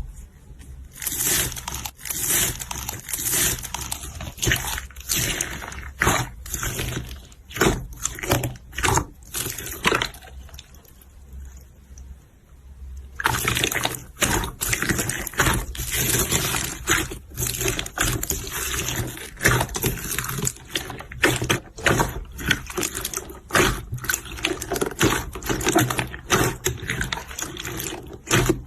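Slime being squished and pressed by hand: irregular wet squelching and crackling pops, easing off for a few seconds near the middle before picking up again.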